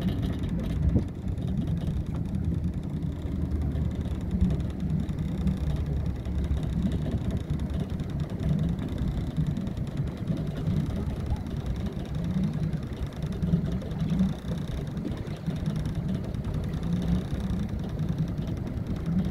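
Engines of the high-speed boat Thunder Child, a steady low drone as it runs at speed across the water.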